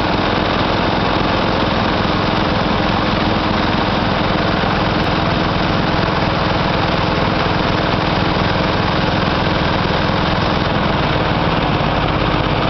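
Engine running at a steady idle, an even, unchanging hum throughout.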